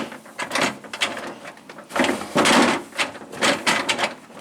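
Cloth towel rubbing over the refrigerator's plastic interior, drying it in a few wiping strokes, the longest about two seconds in.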